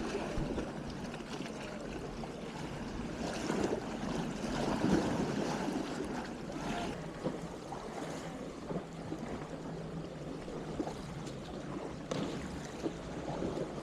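Calm sea water lapping and washing at the shore, a steady wash of water with a few small knocks.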